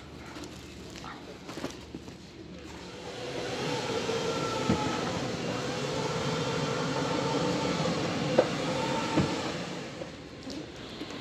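A metal wire shopping cart rolling and rattling over a hard store floor. It swells about three seconds in, with a few knocks, and fades near the end.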